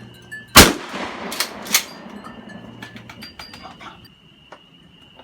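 Ruger AR-15 rifle firing: one loud shot about half a second in, then two sharper, quicker shots about a second later. Scattered light clicks follow.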